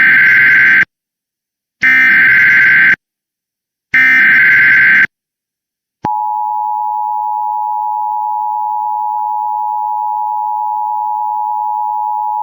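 Emergency Alert System tones announcing a flash flood warning. First comes the SAME digital header: the tail of one burst of harsh data tones and then two more bursts, each about a second long and about a second apart. After a short silence, the steady two-tone EAS attention signal starts about six seconds in and holds.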